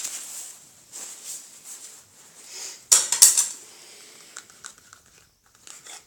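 Plastic crinkling and rustling with light clicks and scrapes as a plastic paint cup and a wooden stir stick are picked up and handled, with a loud burst of crinkling about three seconds in.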